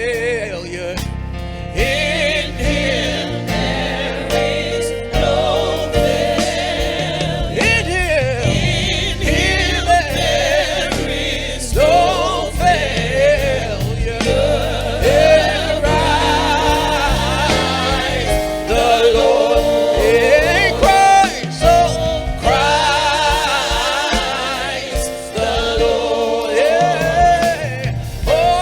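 Gospel choir singing with instrumental accompaniment, the voices holding wavering notes over a steady bass and beat.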